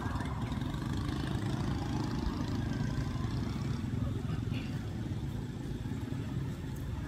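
A steady low engine rumble, like a motor vehicle running.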